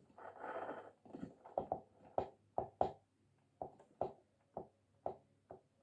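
Small plastic balls knocking in the drum of a toy washing machine: a dozen or so short, sharp knocks at uneven spacing, after a brief rustle at the start.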